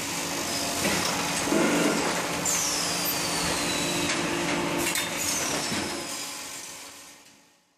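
Automatic grinding wheel making machine running: a dense, steady mechanical clatter with a few sharp knocks and a high whine that falls in pitch a few seconds in. The noise fades out near the end.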